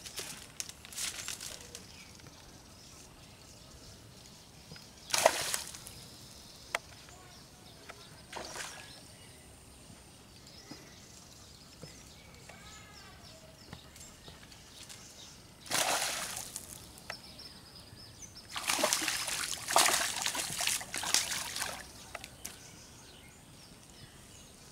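Hooked fish splashing in pond water as it is reeled in: short splashes a few seconds apart, then a longer run of splashing near the end.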